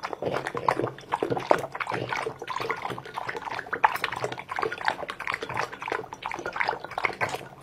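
French bulldog lapping and slurping soup from a bowl: quick, irregular wet licks and smacks, several a second.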